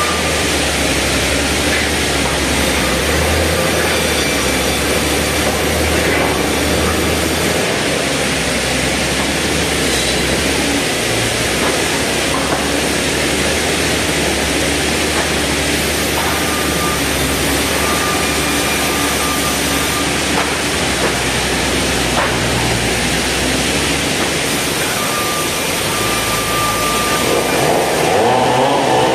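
Band sawmill machinery running: a steady mechanical din with a low hum. Near the end a louder wavering sawing sound rises as the blade begins cutting into wood.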